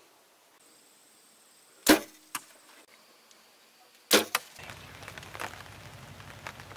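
Two sharp, loud cracks about two seconds apart, each followed within half a second by a fainter crack. After the second pair a low steady hum of outdoor background comes in.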